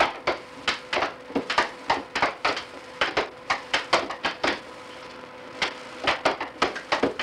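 Air hockey puck and plastic mallets clacking in quick, irregular hits, several a second, with a short lull partway through, over a steady hum.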